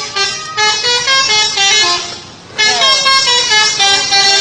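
Indonesian bus 'telolet' horn: a multi-tone horn playing a quick melody of stepped notes. It breaks off briefly about two seconds in, then starts the tune again.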